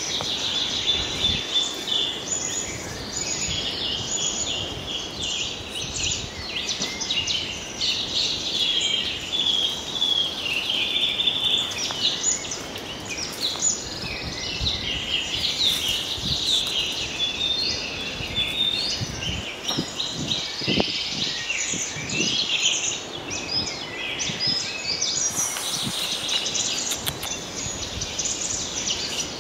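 Many small birds chirping and twittering all at once in a continuous, busy chorus, with faint low rustling underneath.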